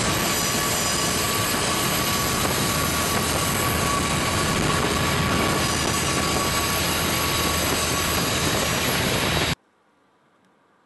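Diesel-electric locomotives of a freight train passing close by: a loud, steady rumble and rush of engine and wheel noise with a faint high tone held throughout. It cuts off abruptly near the end.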